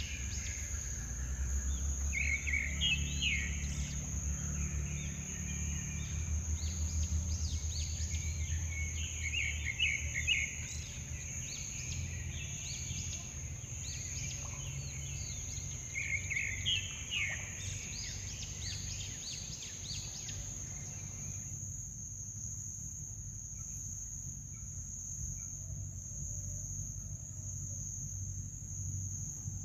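Outdoor ambience: insects drone steadily at a high pitch while a bird calls in quick runs of chirps three or four times, the calls stopping about two-thirds of the way through, over a low background rumble.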